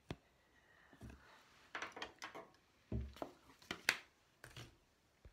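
Handling noise close to the microphone: scattered clicks, light taps and a couple of soft knocks as small makeup items are moved about, with a sharper click a little before the end.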